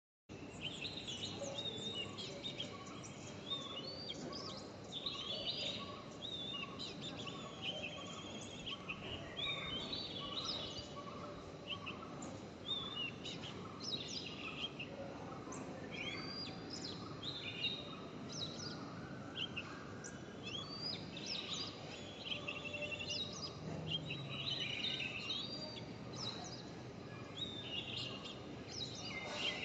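Forest ambience: many birds chirping and trilling all through, over a steady soft hiss, with a soft note repeating at an even pace through the first half.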